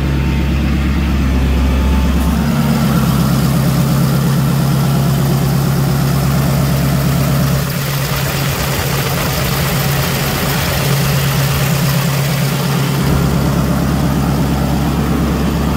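Ford 6.7L Power Stroke V8 turbo diesel idling steadily, heard from the open engine bay.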